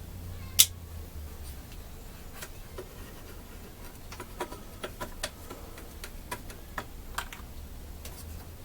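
Scattered sharp clicks and light taps of tools and small chainsaw parts being handled while a carburetor and air filter assembly are refitted, with one louder click about half a second in.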